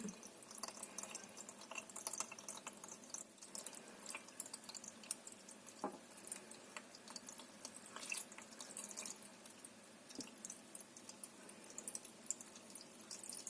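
Water being poured into the reservoir of an IKEA VÄXER hydroponic growing unit, faintly trickling and dripping with many small irregular splashes as it fills toward the max mark.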